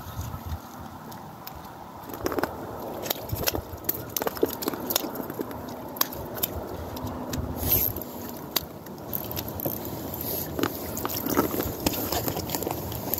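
Scattered clicks and scrapes of a spinning reel and line being worked as a fish is hooked and reeled up through an ice-fishing hole, with water splashing as the fish is landed in the second half.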